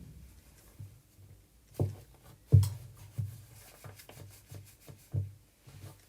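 A series of soft thumps and knocks, about one every two-thirds of a second, with the loudest about two and a half seconds in.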